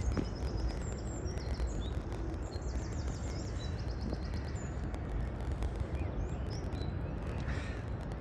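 Small birds singing: short high chirps and a quick run of repeated notes, over a steady low rumble.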